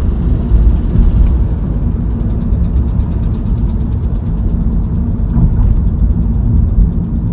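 Steady low rumble of road and engine noise inside the cabin of a Kia K3 on the move.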